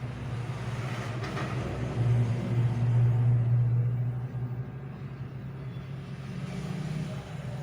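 Hot air rework blower running at a high air setting and low heat, a steady low hum with rushing air noise that swells louder for a couple of seconds near the middle. It is heating a phone's back panel to loosen it.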